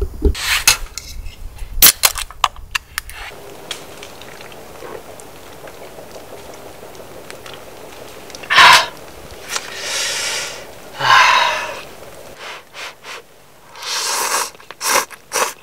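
A few crunching steps in snow at the start. Later there are several loud, noisy slurps as a man eats noodles with chopsticks from a metal mess tin, the biggest bursts near the end.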